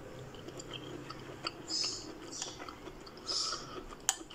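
Someone chewing a mouthful of ramen noodle soup, with two short hisses and a sharp click near the end.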